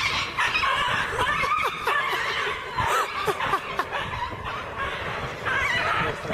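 People laughing, several short bursts that overlap throughout.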